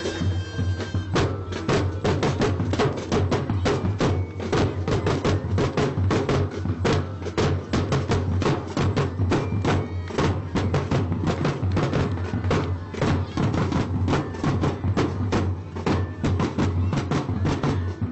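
Drum corps percussion playing a fast, busy drum cadence of dense, rapid strikes. Held melodic notes from the wind instruments stop about a second in.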